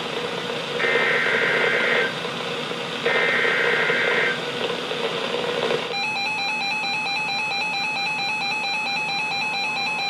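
NOAA Weather Radio SAME alert header: two harsh data bursts about a second long, a second apart, over radio hiss. About six seconds in, the hiss cuts off and a weather radio receiver's electronic alert alarm starts sounding a steady pulsing beep, with a second, higher beep joining near the end. The alarm signals that an incoming warning has been decoded.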